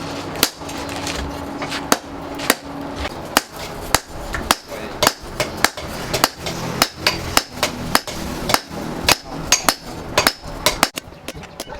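Blacksmith's hammer striking steel, repeated uneven blows at about two to three a second, some with a short metallic ring.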